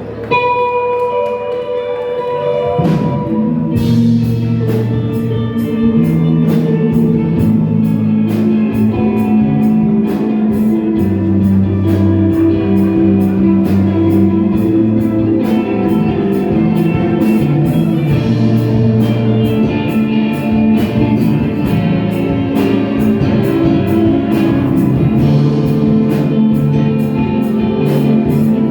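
Live band playing instrumental rock: held guitar notes, then the drums come in about four seconds in with a steady cymbal beat over a dense bed of guitar and bass.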